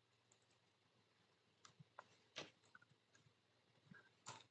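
Faint computer keyboard keystrokes: after a quiet start, about half a dozen separate key clicks at an uneven pace from about a second and a half in.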